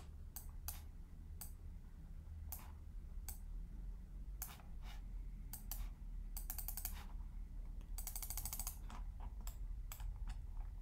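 Computer keyboard and mouse clicks: scattered single clicks, with two short runs of rapid ticking from a mouse scroll wheel about six and eight seconds in. A low steady hum lies underneath.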